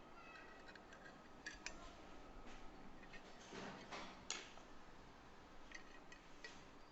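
Faint, scattered small clicks and scrapes of a screwdriver prying at the sealed housing of an engine control unit.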